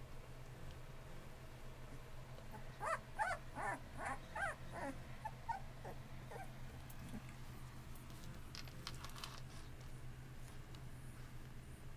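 Bullmastiff puppy, about two and a half weeks old, whimpering: a quick run of short, high squeaks that rise and fall, starting about three seconds in and tapering off by about six seconds. A few soft clicks and rustles follow near nine seconds, over a steady low hum.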